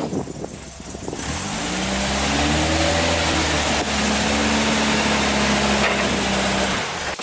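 1973 VW Type 2 camper van's air-cooled flat-four engine running as the van creeps forward. It revs up between about one and three seconds in, holds a steady note, then stops abruptly near the end.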